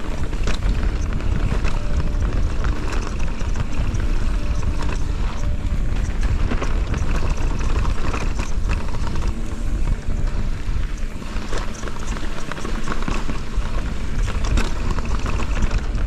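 Mountain bike riding fast down a dirt singletrack, heard from a camera mounted on the rider: wind buffeting the microphone in a steady low rumble, with tyres on dirt and the bike's chain and frame rattling in frequent clicks.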